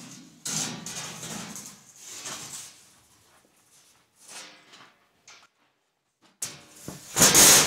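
A large thin steel sheet being handled and flexed, with scraping and wobbling, then set down flat on a workbench with a sudden loud crash near the end.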